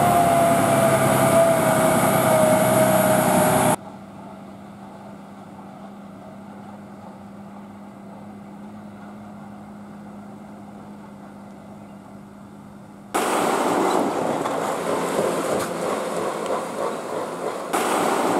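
Loaded 14-wheel tipper lorry: a long horn blast whose pitch slides slowly down as the lorry moves. It stops abruptly, leaving a quieter steady hum. About thirteen seconds in, loud rushing engine and road noise starts as a lorry goes by.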